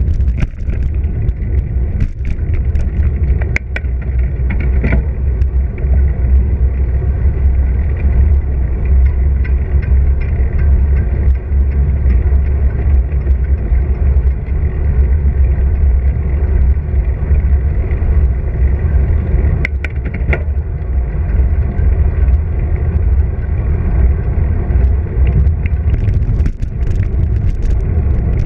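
Wind rumble on a bicycle-mounted action camera's microphone during a ride, with tyre and road noise on asphalt. A few sharp knocks and rattles come through, loudest around two, three and a half, five and twenty seconds in.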